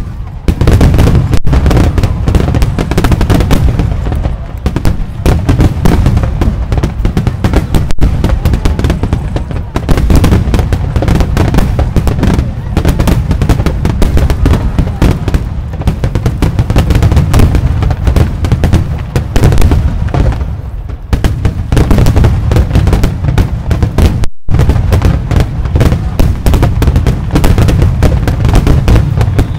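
Rapid, continuous barrage of aerial firework shells launching and bursting in a starmine-style display, with loud booms and crackles densely overlapping. A momentary dropout in the sound about 24 seconds in.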